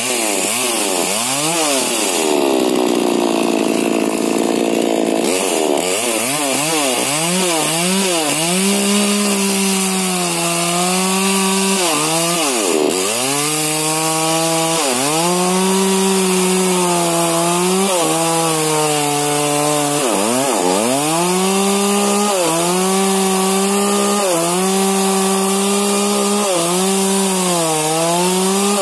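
A modified-exhaust Husqvarna 125, a 40 cc two-stroke chainsaw, cutting through the trunk of a young rubber tree. The engine pitch swings up and down quickly at first, then settles lower and steadier as the chain works through the wood, dipping and recovering over and over as it bogs under load and picks up again.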